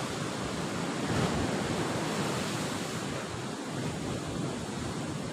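Sea surf washing and breaking in a steady rush, swelling a little about a second in, with wind buffeting the microphone.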